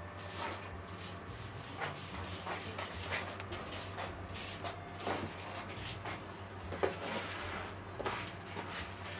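Soft, irregular clicks and rustles of cats shifting and grooming on a pet bed inside a wire cage, over a steady low hum.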